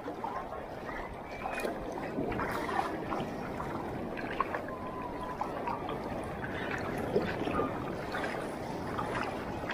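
Shallow seawater sloshing and trickling around wading legs, with small splashes and ticks scattered through it.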